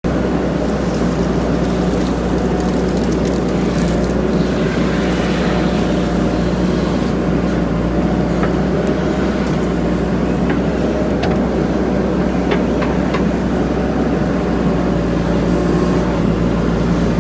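JCB 3DX backhoe loader's diesel engine running steadily, with a few light clicks about halfway through.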